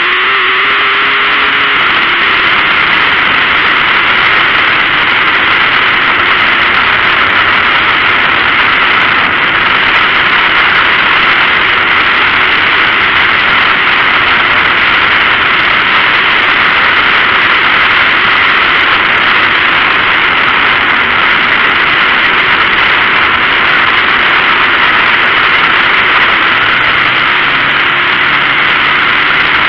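Dirt-track race car engine running hard at racing speed, picked up by an onboard camera on the car, a loud, steady, unbroken noise. Near the end a clearer, steady engine note comes through.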